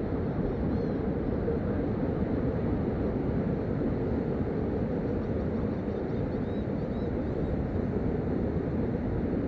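A steady low rumbling noise with no breaks or changes, with faint high chirps about a second in and again around six to seven seconds in.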